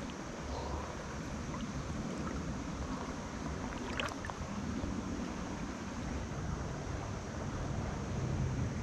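Steady rush of a shallow stream's current close by, with a low rumble under it. A faint click comes about four seconds in.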